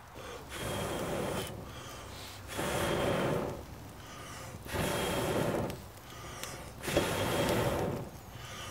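A man blowing long breaths into the base of a small wood campfire to fan the embers into flame, four blows about two seconds apart.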